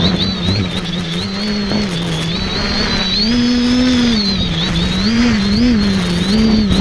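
Electric motors and propellers of an X550AIOP multirotor heard from its onboard camera, a steady whine whose pitch rises and dips over and over as the throttle changes in flight, over rough wind noise on the microphone.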